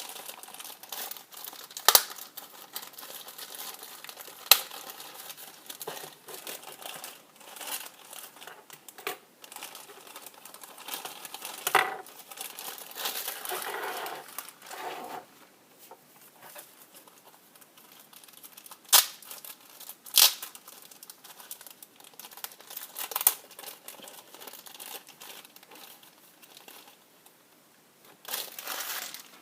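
Crinkling and tearing of thin plastic packaging being opened by hand, with a few sharp clicks and snaps.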